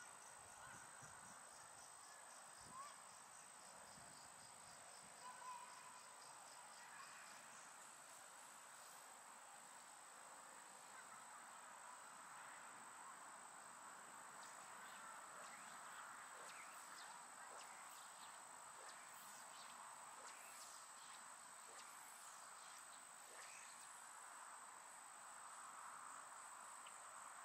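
Near silence, with faint, steady, high-pitched insect trilling.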